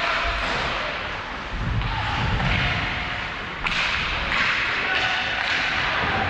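Hockey game play on a rink: a run of sudden, sharp scraping hits and thuds over a steady noisy rink background, with the hits coming more often in the second half.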